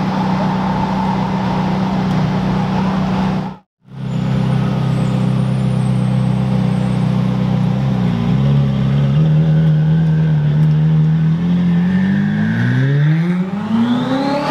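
Ferrari 458's V8 engine running at a steady low idle drone, then rising in pitch about twelve seconds in as it revs and pulls away. The sound cuts out completely for a moment near four seconds in.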